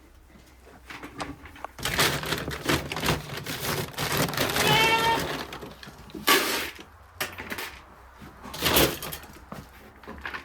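Irregular crackling and crunching noises, with one goat bleat about halfway through.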